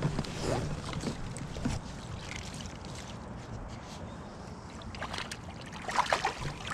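Hooked trout splashing at the surface beside a kayak, a few sharp splashes about five to six seconds in, over a steady wash of wind and lapping water.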